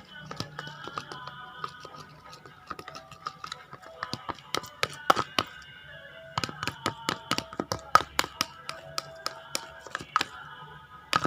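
A spoon clicking and tapping against a small container in quick, irregular strokes while stirring a slime mixture, over faint background music.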